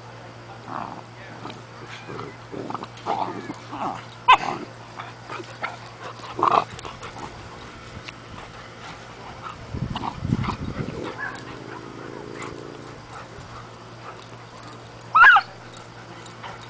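Two Irish setters, a young puppy and an adult, play-fighting, giving scattered short high-pitched cries and whimpers. One sharp, loud yelp comes near the end.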